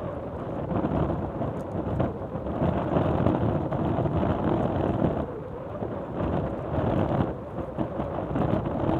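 Wind buffeting the microphone: a dense, rumbling rush that swells and eases in gusts, dipping briefly about five seconds in and again about seven seconds in.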